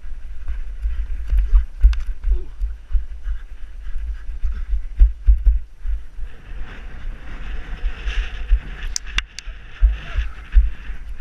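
Wind buffeting a GoPro's microphone: a gusting low rumble with scattered sharp clicks as the camera moves with its wearer, and a stronger hiss from about six to ten seconds in.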